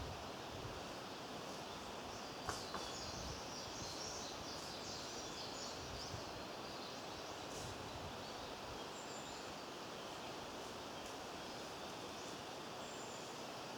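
Outdoor ambience: a steady hiss of background noise with faint, scattered high bird chirps, and two light ticks about two and a half seconds in.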